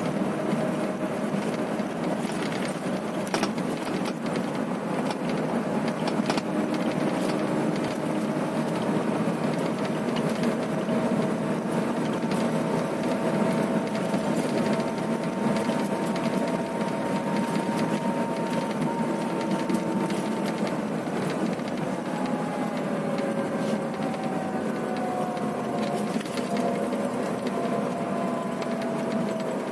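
Cabin noise inside a Scania coach cruising on a highway: a steady drone of engine and road noise, with scattered rattles and clicks from the interior and a faint whine that slowly shifts in pitch.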